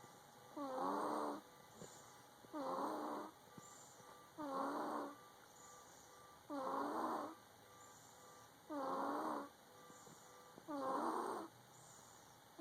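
A sleeping baby snoring, congested from a cold: a short pitched snore about every two seconds, six in all, with quiet breathing between.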